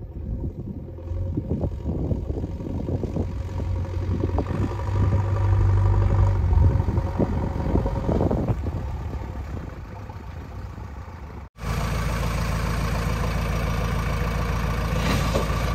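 Diesel engine of a JCB 3DX backhoe loader running as the machine drives up with a loaded front bucket. It gets louder as it nears, with scattered rattles and clanks. It then runs steadily as the bucket is tipped.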